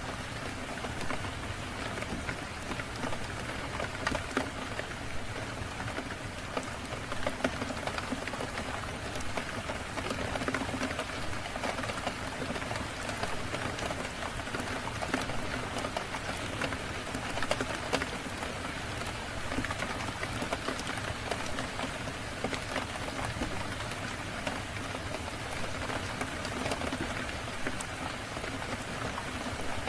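Steady rain falling on a surface, an even hiss full of small sharp ticks from single drops.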